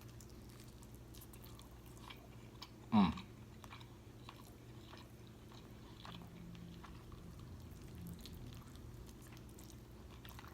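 Close-miked chewing and biting of food, with faint crunches and soft wet clicks. One short, louder sound falls in pitch about three seconds in.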